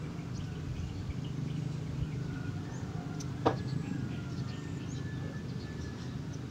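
Computer power supply's cooling fan running with a steady low hum, and a single sharp click about three and a half seconds in as the supply's output wires are handled.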